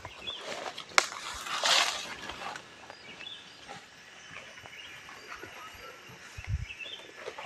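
Outdoor ambience with faint scattered bird chirps, a sharp click about a second in, a short burst of noise just after it, and a couple of low thumps near the end.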